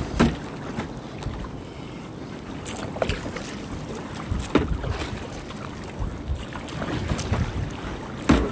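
Kayak in ocean surf: water splashing and sloshing around the boat, with wind buffeting the microphone and irregular sharp knocks, the loudest near the end.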